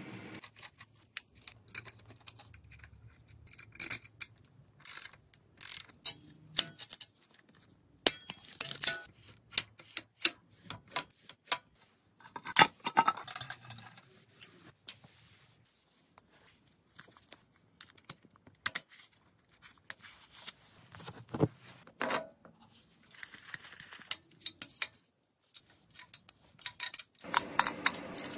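Irregular metallic clicks, clinks and taps as motorcycle parts and hand tools are handled and fitted during assembly, with quiet gaps between them.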